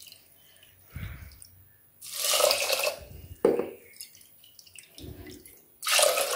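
Water poured from a bowl into a pressure cooker onto raw rice and moong dal, two splashing pours about a second long each, one a couple of seconds in and one near the end. A few dull knocks fall between them.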